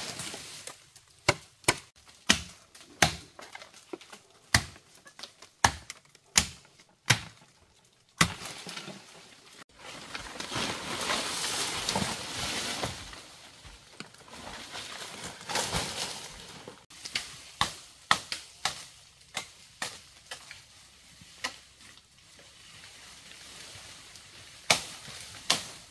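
A series of sharp, irregular knocks and chops, with a stretch of steady hissing noise in the middle before the knocks resume.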